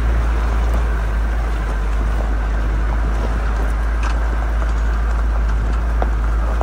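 Steady low wind rumble on the microphone held at the open window of a Toyota Land Cruiser driving along a gravel road, mixed with the vehicle's engine and tyre noise.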